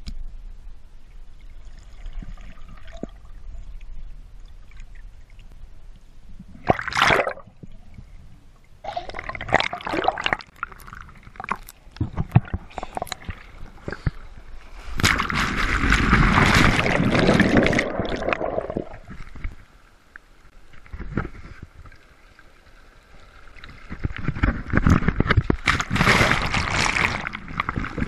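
Sea water sloshing and splashing around a waterproof camera at the surface, muffled at first while under water, with two longer loud surges of breaking, foaming surf about halfway through and near the end.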